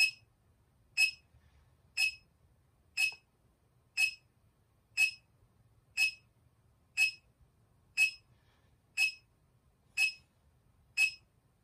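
A short, high electronic beep repeating evenly once a second from a handheld meter's beeper.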